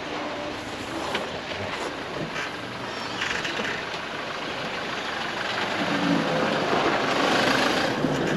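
Four-wheel-drive ute's engine running at low revs as it crawls down a sandy track and drives past close by, tyres working through the sand; louder in the last couple of seconds as it passes.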